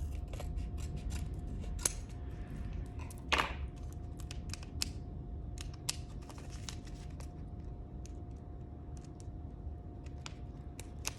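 A packet of loose-leaf tea being opened and handled: irregular crinkling and clicking of packaging, with a few sharper snaps in the first five seconds.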